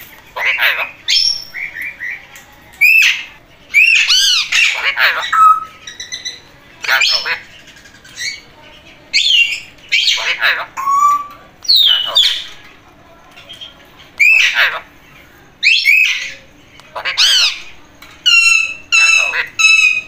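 Alexandrine parakeet calling loudly: short calls that rise and fall in pitch, in clusters every second or two, with a quick run of rapid repeated calls near the end.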